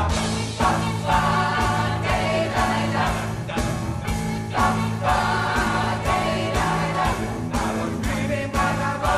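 Mixed pop choir singing in harmony, backed by keyboard, bass and drums playing a steady beat.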